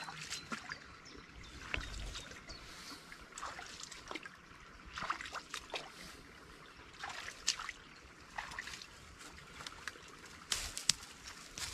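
Water trickling, with small irregular splashes and drips and a low thump about two seconds in.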